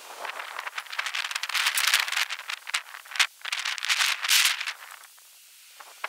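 Wooden top bars of a top bar hive being shifted and knocked together: a quick run of rattling clicks and scraping that stops about five seconds in.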